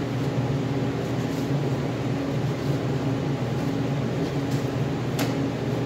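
Electric fan running with a steady low hum, and a single light tap about five seconds in.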